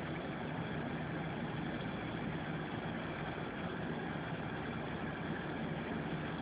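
A steady low mechanical hum, unchanging in level.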